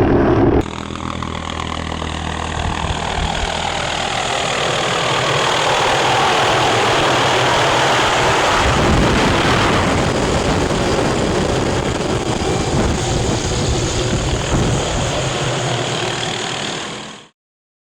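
An engine running steadily, growing louder over the first few seconds, then cutting off abruptly near the end.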